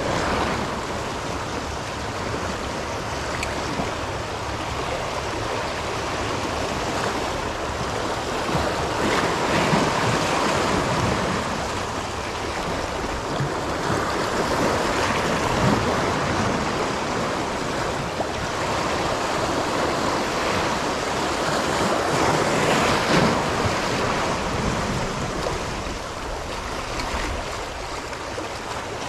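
Sea waves washing against a rocky shore, a steady rush that swells and eases every several seconds, with wind buffeting the microphone.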